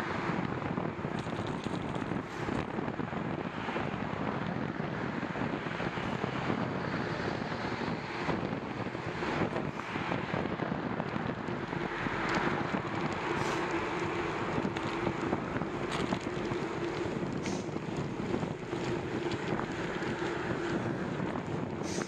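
Wind rushing over the microphone of a camera on a moving bicycle, mixed with tyre and road-traffic noise. A steady hum comes in about halfway through.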